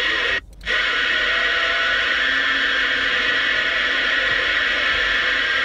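Uniden PC68LTW CB radio receiving a steady hiss of static on an open channel between transmissions, while the operator listens for distant skip stations. The noise cuts out briefly about half a second in, then comes straight back.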